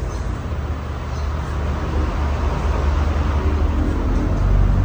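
Casablanca Lanai ceiling fan running after a hand kick-start, its motor giving a steady low hum over a rush of air noise, getting a little louder toward the end. The motor has an open winding and will not run properly.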